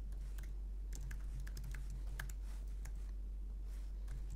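Typing on a computer keyboard: irregular key clicks, several a second, over a steady low hum.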